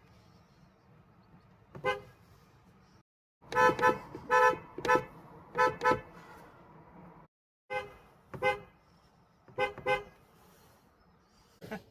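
Car horn sounded in a series of short toots, about a dozen brief beeps with gaps between them, some in quick pairs.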